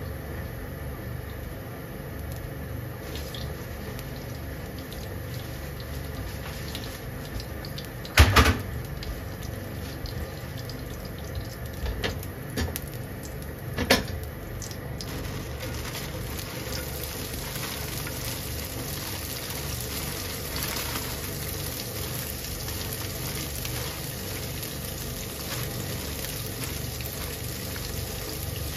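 Sesame oil heating in a frying pan on a stove: a steady hiss, with a few sharp knocks of the pan between about 8 and 14 seconds in as the oil is swirled round, and a faint sizzle building in the second half.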